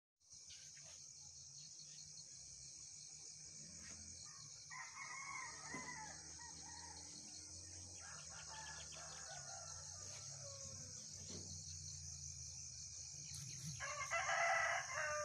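Chickens calling, with a rooster crowing loudest near the end, over a steady high-pitched insect buzz.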